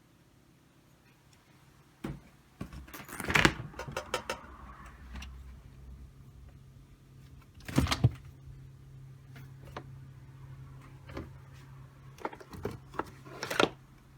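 Refrigerator doors and drawers being handled: a run of knocks, clatters and sliding scrapes, loudest about three and eight seconds in. A low steady hum comes on at about the same time as the second loud clatter.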